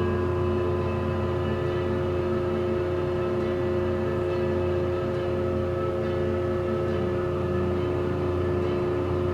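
Steady mechanical hum of a moving aerial ropeway cabin heard from inside, a low drone with several steady whining tones above it.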